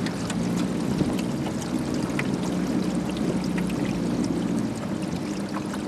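A small boat's outboard motor runs under way with a steady hum, while water rushes and splashes along the hull.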